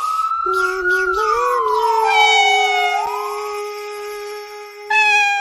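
A wailing siren, like a police car's, sweeping down in pitch and then starting to rise again about three seconds in, over held, meow-like sung notes.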